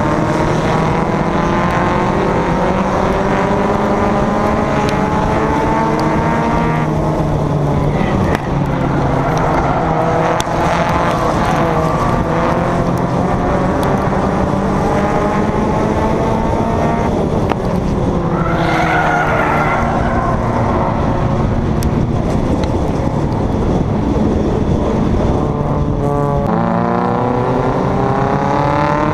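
Stock car's engine heard onboard while racing in a pack, its pitch climbing under throttle and then dropping back, about three times. The engines of the surrounding cars run underneath, with a brief higher squeal a little past halfway.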